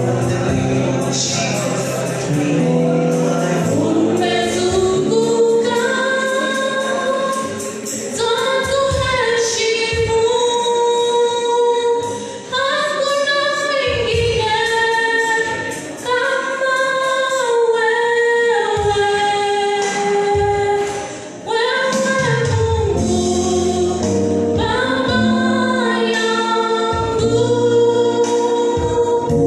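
Group singing of a gospel song, several voices together with held, gliding phrases, accompanied by music.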